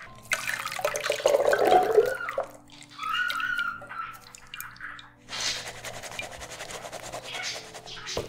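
Liquid from a can of chickpeas poured through a stainless steel mesh strainer into a glass bowl, splashing and trickling. The pour comes in uneven spurts, then runs as a steady trickle over the last few seconds.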